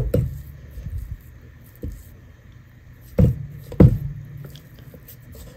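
Silicone spatula scraping and pushing stiff cookie dough around a stainless steel mixing bowl, with several dull knocks against the bowl, the loudest at the start and about three and four seconds in.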